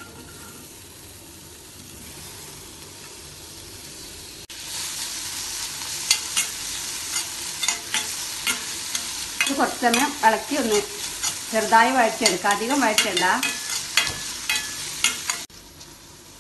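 Sliced onions and chopped tomatoes sizzling in oil in a stainless steel pan, stirred with a spatula that clicks and scrapes against the metal. The sizzle is faint at first, jumps louder about four seconds in, carries squealing scrapes in the middle, and drops away near the end.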